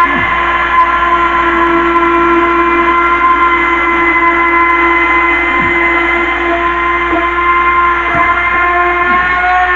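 A loud, steady machine whine with a pitched hum that holds one pitch throughout, with a few faint brief downward-sliding sounds under it.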